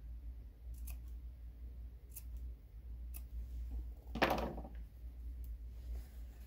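Fabric scissors making a few scattered sharp snips as small cuts are clipped into a fabric brim's seam allowance to keep its curved shape, with a louder half-second rustle of handling about four seconds in.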